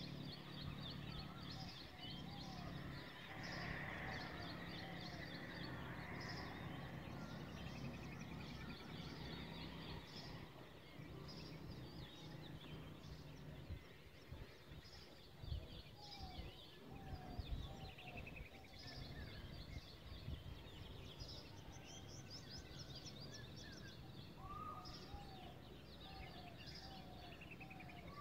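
Several birds calling together: many short high chirps, including house sparrow chirping, mixed with a lower whistled note repeated in series. A steady low hum underlies the first half, and a few low thumps come about halfway through.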